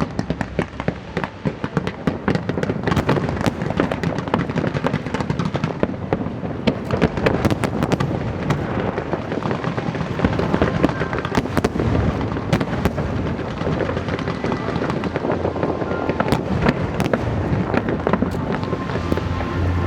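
Aerial fireworks bursting in quick succession, with many sharp bangs and crackles overlapping without a break.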